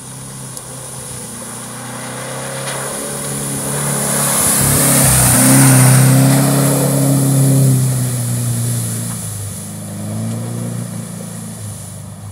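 Off-road 4x4's engine as the vehicle drives past fast on a wet dirt track. It grows louder as it approaches, is loudest about halfway through, then fades as it pulls away. A hiss rises and falls with it.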